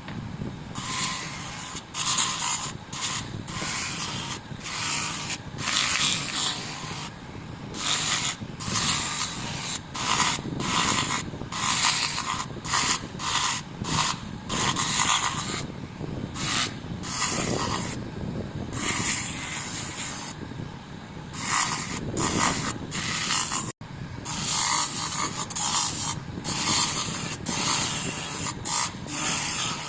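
Sandpaper rubbed by hand over a motorcycle's metal rear footrest in irregular scratchy strokes, about one or two a second.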